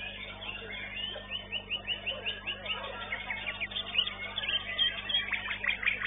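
White-rumped shama (murai batu) singing in fast runs of repeated chirps and trills, the sharpest notes coming in the second half, over a steady low hum.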